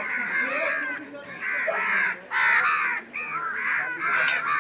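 Several crows cawing over one another, call after call.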